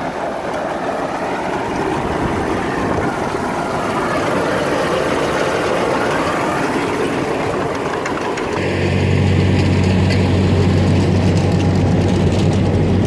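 Tractor engine running with a John Deere 435 round baler in operation. About two-thirds of the way through, a steady low drone sets in and holds.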